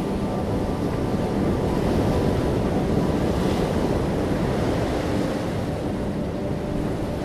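Steady rush of ocean surf and wind, swelling slightly in the middle.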